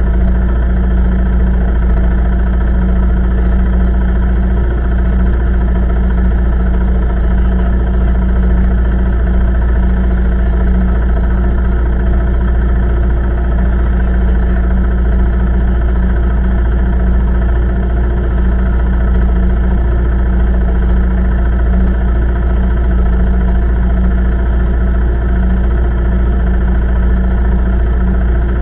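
ATV engine idling steadily, a constant low-pitched running with no revving.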